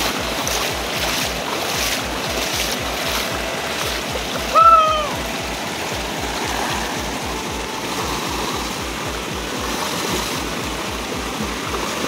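Shallow rocky stream rushing and splashing over stones, under background music with a steady beat of about four a second. About four and a half seconds in, a short loud call rises above it, its pitch dipping as it ends.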